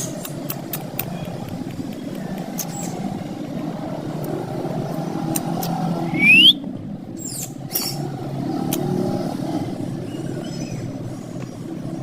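Steady low background rumble, with one short shrill rising squawk from a green ringneck parakeet about six seconds in.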